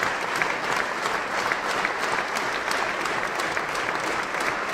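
Steady applause from a concert audience: many hands clapping at once, evenly and without a break.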